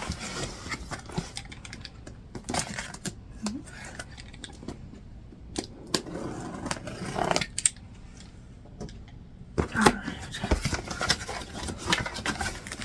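A cardboard shipping box being opened by hand: packing tape cut and cardboard flaps scraped and pulled open, in irregular bursts of rustling and clicks.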